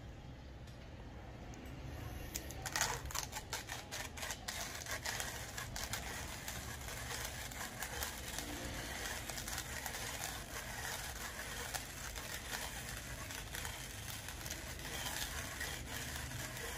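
Hand coffee grinder being cranked, the beans crunching and crackling as the burrs crush them. The dense crackle starts about two and a half seconds in and keeps on steadily.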